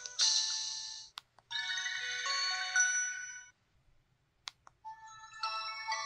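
Built-in system sound effects of an LG-SV280 Cyon slide phone, played one after another. A short noisy burst comes first, then a chiming electronic tone of about two seconds and a few clicks. A multi-note electronic melody starts about five seconds in.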